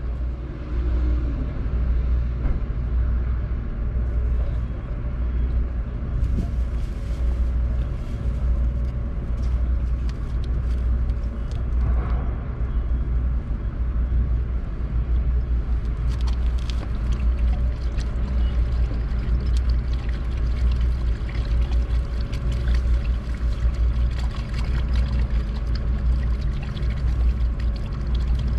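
An engine running steadily with a low rumble and a constant hum, with a few small ticks and knocks over it.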